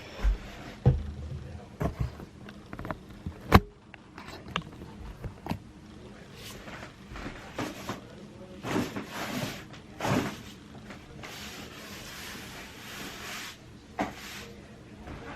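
Household tidying sounds: scattered knocks and thumps of objects being handled and set down, with stretches of rustling and scraping in the second half.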